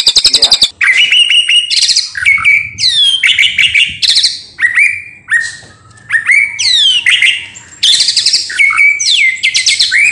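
White-rumped shama singing in a cage. It starts with the tail of a fast, even rattling trill, then runs through varied whistled phrases that sweep steeply down in pitch, with short pauses between them.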